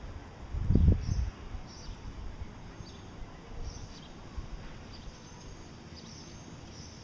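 Gouldian finches giving short, faint, high chirps now and then, over a steady hiss. A low rumbling thump about a second in is the loudest sound.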